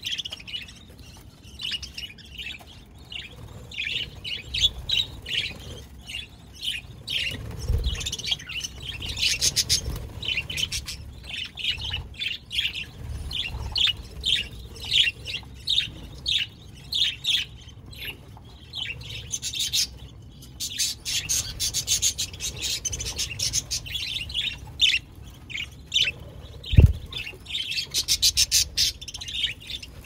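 Budgerigars chirping and chattering: a steady stream of short, high chirps from the flock. There is a single thump near the end.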